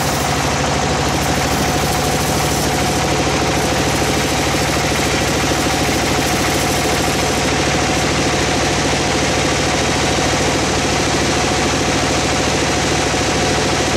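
Band sawmill running steadily while its blade rips lengthwise through a teak log: a continuous, even machine drone with a low hum.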